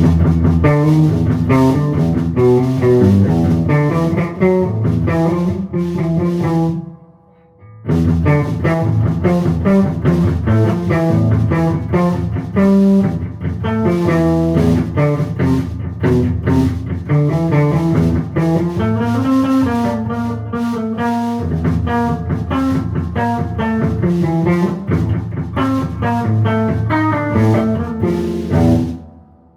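A band jamming, with guitar most prominent over bass and drums. The playing stops for about a second some seven seconds in, starts again, and breaks off just before the end.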